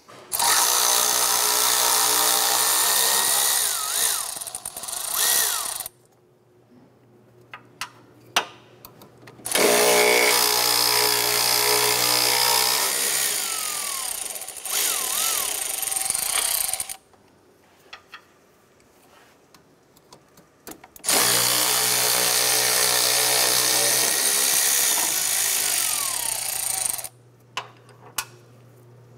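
A handheld power tool runs three times, about six to seven seconds each, backing out the radiator support bracket bolts. A few short clicks and taps fall in the gaps between runs.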